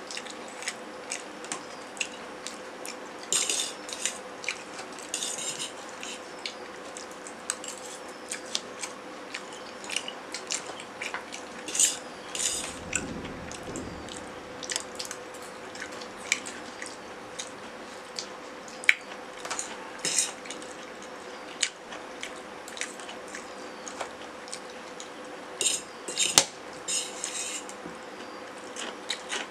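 Metal forks clinking and scraping on stainless steel plates as two people eat noodles: scattered light clicks with a few louder scrapes, over a faint steady hum.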